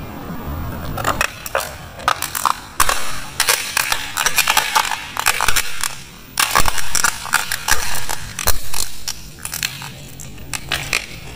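Plastic toy jeep cracking and crunching as a forklift tyre rolls over it and flattens it: a long run of sharp snaps and crackles, densest in the middle.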